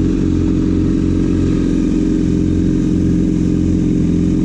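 Yamaha sportbike's inline-four engine running steadily, heard from the bike's own camera mount.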